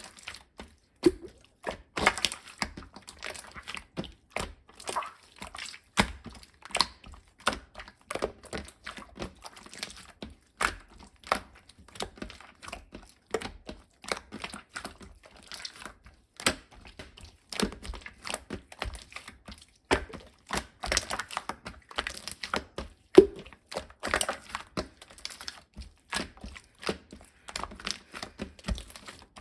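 Slime being squeezed, pressed and pulled by hand, giving irregular sticky crackles, clicks and small pops.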